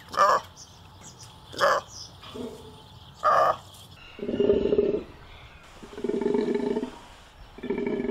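Golden takin calling: three short, sharp calls about a second and a half apart, then three longer, lower calls of about a second each.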